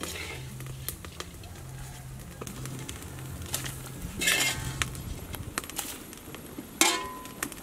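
Metal spatula scraping and clinking against a metal wok and cooking pot as fried rice is scooped into simmering soup, with a louder scrape about four seconds in and a sharp metallic tap that rings briefly near the end.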